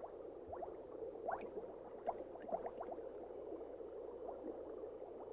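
Water bubbling and gurgling: a steady low wash with many small, quick bubble blips rising in pitch, a few each second.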